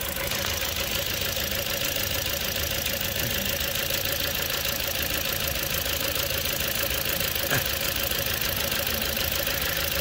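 Toyota Corolla's 1.8-litre 2ZR-FE four-cylinder engine idling steadily with a misfire: one cylinder, fired by a failing ignition coil, contributes only a little.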